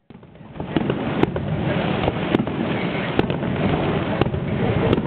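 Fireworks display: a dense, continuous crackle with sharp bangs roughly once a second.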